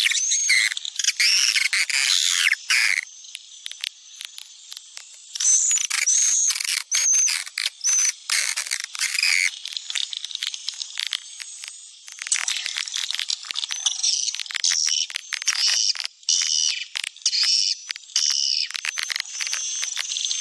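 Swiftlet call sound used to lure swiftlets to a nesting house: dense, high-pitched twittering and chittering with rapid sharp clicks, in bursts, thinning out briefly about 4 and 10 seconds in.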